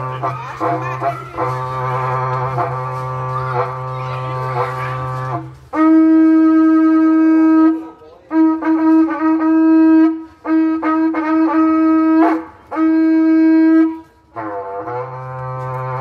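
A berrante, the Brazilian ox-horn trumpet, blown: a low, wavering tone for about the first five seconds, then four long, louder high notes with short breaks between them, and back to the low tone near the end.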